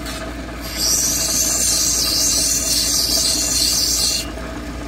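Lapidary cabbing machine running steadily while an agate cabochon on a dop stick is ground against one of its wheels. A hissing grind starts about a second in and stops near the end, as the stone is pressed to the wheel and lifted off.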